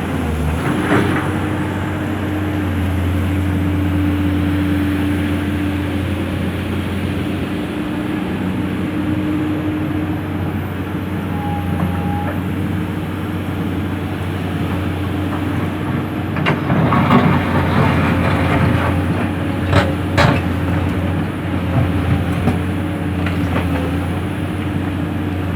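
Komatsu PC200 excavator's diesel engine running steadily under work. Past the middle there is a spell of clatter, then a few sharp knocks, as the bucket digs through stone and sand.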